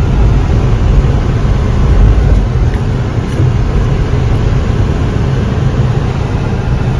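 Car driving slowly through snow: a steady low rumble of engine and tyres.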